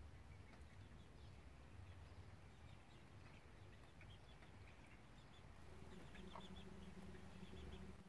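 Faint garden ambience: scattered small bird chirps over a low rumble. A steady low hum comes in about six seconds in.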